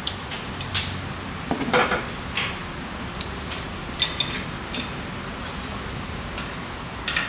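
Scattered sharp metal clinks and knocks as a new cast-iron upper control arm is worked into its frame mounts by hand, with a brief scrape just under two seconds in.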